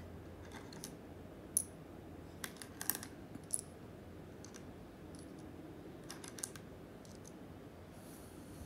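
Small wooden stamp game tiles clicking against each other and the box as they are picked up one at a time and dropped into an open palm: light, irregular clicks.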